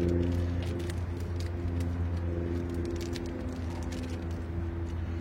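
A steady low mechanical hum with a few faint clicks and rustles over it.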